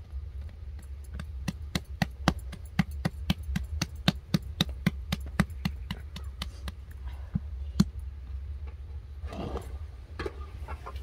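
Hands patting and slapping a ball of bread dough while rounding it, about three sharp pats a second for several seconds, then a short rustle as the ball is set down. A steady low rumble runs underneath.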